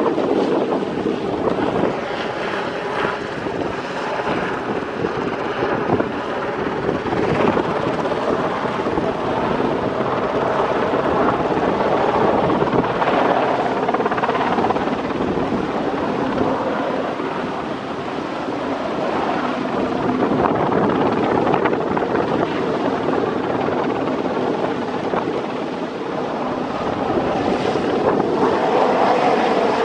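Westland Sea King helicopter in low display flight: a steady rapid beat of the main rotor over the whine and rush of its twin turboshaft engines, swelling and easing a little as it turns and passes.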